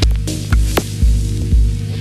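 Music with a heavy bass beat, about two beats a second, and sharp hits between the beats.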